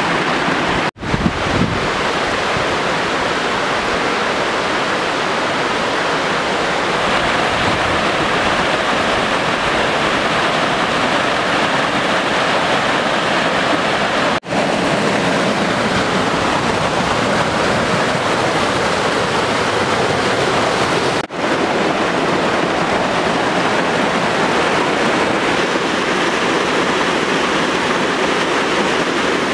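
Waterfall in a narrow rock gorge, water rushing and splashing down in a loud, steady roar. The sound drops out three times very briefly.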